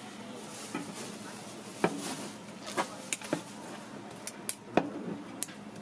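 Metal spatulas scraping and tapping on a plastic cutting board as fish-cake paste is spread over bread, with scattered sharp clicks, the loudest near the end, over a steady background hum.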